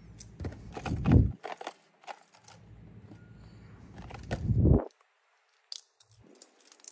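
Clicks, light clinks and scraping from a stainless steel Alba wristwatch being handled close to the microphone, with two louder handling bumps, about a second in and at about four and a half seconds.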